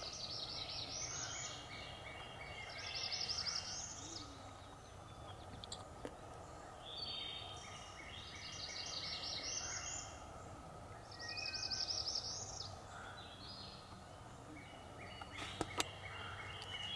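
Songbirds singing in woodland: a high, rapid trilled song repeated four times, about every three seconds, over softer chattering calls from other birds. A few sharp clicks near the end.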